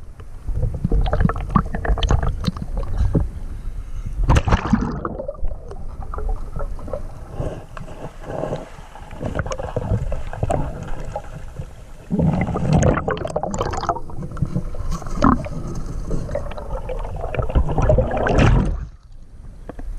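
Muffled underwater sound of a river picked up by a submerged camera: a dense low rumble and gurgle of moving water, with many small clicks and knocks, dropping away briefly near the end.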